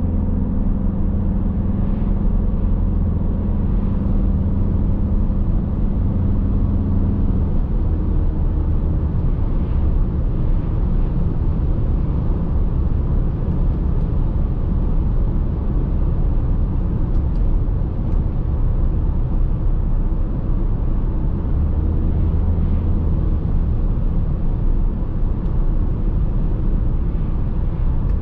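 Audi A6 C6 2.0 TDI diesel engine running steadily at expressway speed with tyre and road noise. A steady engine drone is clear for about the first eight seconds, then sinks under the rougher road noise and comes back briefly later on.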